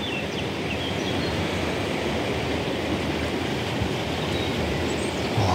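Steady rushing of flowing river water, an even noise with no change, and a few faint high chirps near the start.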